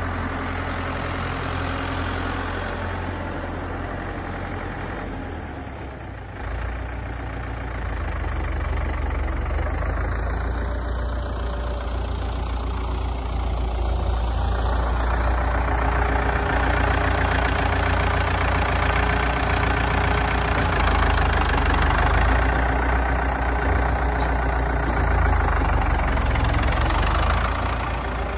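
Ford 5000 tractor's four-cylinder diesel engine running as the tractor is driven, with a brief dip about six seconds in and louder through the second half as the tractor comes close.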